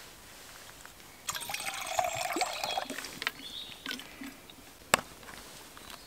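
Water poured from a plastic bottle into a steel mug, splashing and trickling for about two seconds, followed by fainter handling sounds and one sharp click.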